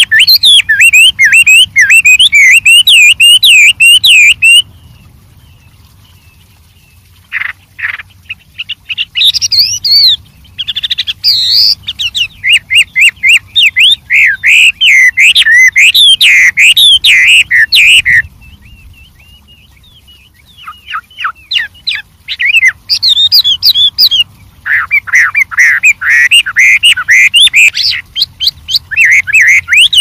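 Chinese hwamei singing a loud, varied song of fast warbled phrases of rising and falling whistled notes, with two pauses of a few seconds, about five seconds in and again after about eighteen seconds.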